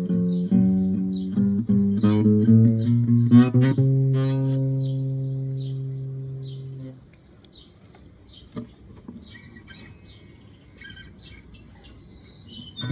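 Guitar plucked in a few notes and chords, then a low note left ringing and dying away about seven seconds in. Short high chirps run through the fading note and the quieter stretch that follows.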